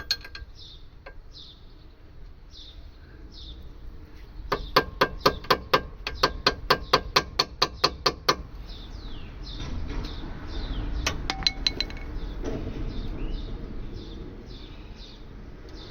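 A quick run of sharp, evenly spaced metallic clicks, about four or five a second for roughly four seconds, with a few more clicks later, from tool work with a spanner on a seized brake caliper piston. A bird chirps over and over in the background.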